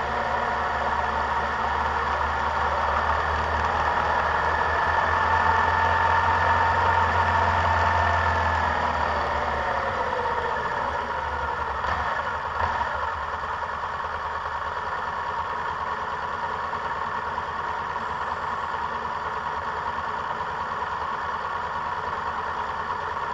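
Vehicle engine heard on board, running under way and then falling in pitch as the vehicle slows, about eight to eleven seconds in; it then settles to a quieter, steady idle with the vehicle stopped. A brief click sounds near the middle.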